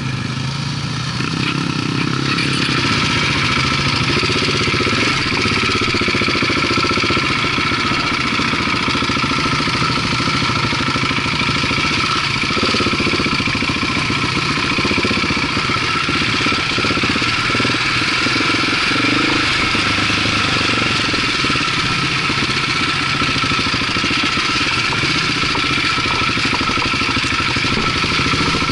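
Off-road motorcycle engine running steadily, its pitch wavering a little, with a steady high whine over it.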